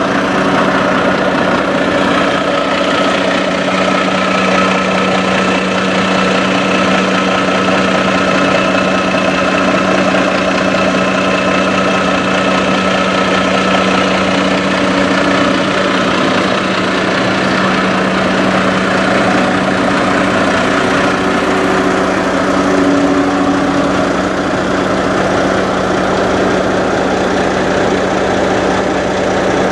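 A Peterbilt semi truck's diesel engine idling steadily, a constant low drone that holds one pitch throughout.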